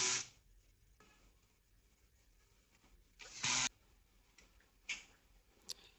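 Quiet handling of a hard disk and the DVR's sheet-metal chassis as the disk is fitted. There is one short scraping whir about three seconds in, then a couple of small clicks near the end.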